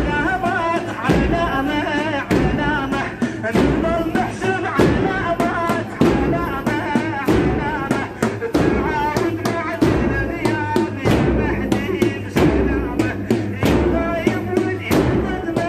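A male reciter chanting a Shia mourning elegy (latmiya) in a wavering, ornamented voice. Heavy rhythmic thumps fall about once a second, typical of mourners beating their chests in time with the chant.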